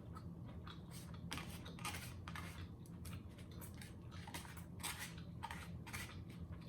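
Eating sounds close to the microphone: irregular crisp clicks and wet smacks of chewing and mouth noises, over a low steady hum.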